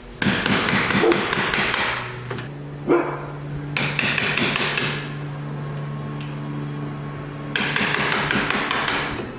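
Wood chisel being struck in quick runs of sharp taps, cutting the mortise for a deadbolt strike plate into a wooden door jamb. There are three runs of about six taps a second, with a single tap between the first two.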